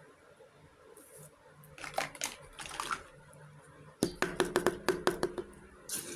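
Small hard toy kitchen pieces being handled: a couple of clicks and a short rustle, then a quick run of about ten light clicks and taps with a faint ring.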